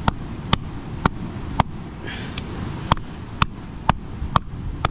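A lava rock striking a dehusked brown coconut, about nine sharp knocks at roughly two a second with a short pause near the middle, breaking into the shell to get at the coconut water.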